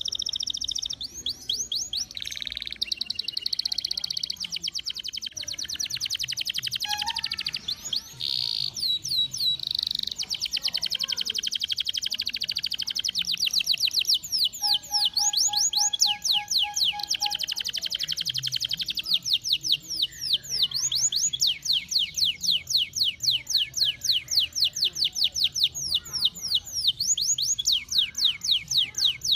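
Domestic canary singing a long, unbroken, high-pitched song of fast trills and rolls, which in the second half turn into rapid runs of repeated sweeping notes.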